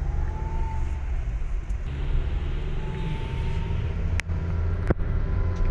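Car cabin noise while driving: a steady low engine and road rumble, with a sharp click about four seconds in.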